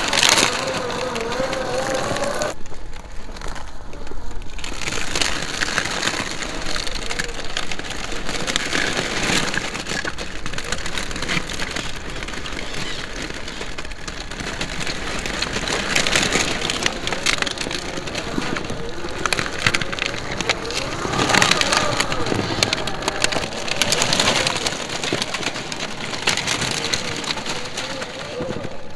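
Electric Traxxas TRX-4 scale RC crawler driving over rock and dirt: tyres crunching and crackling on grit, stone and dry leaves, with the whine of its motor and gears rising and falling at times.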